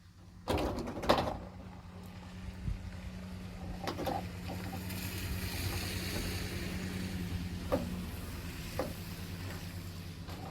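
Several sharp knocks and clunks, the loudest about a second in, over a steady low hum.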